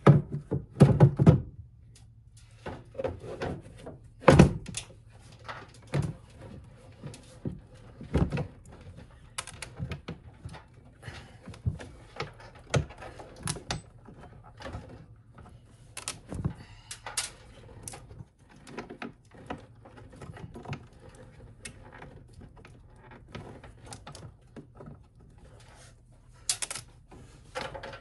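Plastic engine air filter housing of a 2009 Honda Accord being handled. Irregular clicks, knocks and rattles come from the cover and its clips, loudest in the first second and a half and again about four seconds in.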